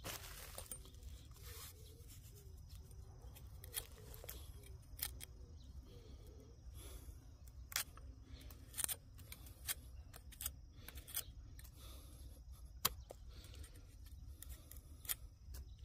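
Faint short scraping and cutting clicks, scattered irregularly about once a second, as the metal blade of a short-handled hoe pares the skin off a freshly dug sweet potato.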